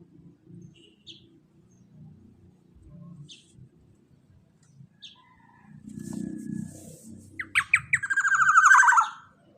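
Black-naped oriole (kepodang) calling: scattered short, high chirps, then about seven seconds in a loud, harsh, rasping call made of rapid pulses that lasts nearly two seconds.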